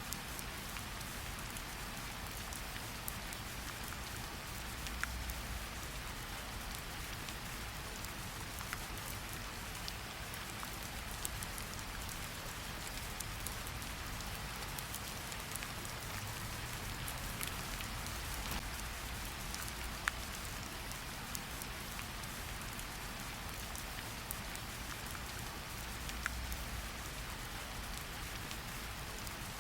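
Steady rain hiss with a soft low rumble, broken by a few sharp pops of a crackling wood fire in a fireplace.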